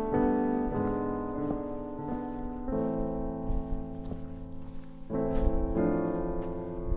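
Background piano music, slow chords changing every second or so, with faint knocks beneath it.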